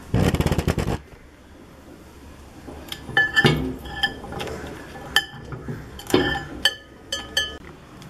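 A metal utensil clinking and scraping against a glass microwave turntable, a series of sharp, ringing clinks spread over several seconds. Just before them, right at the start, there is a loud rapid rattle lasting about a second.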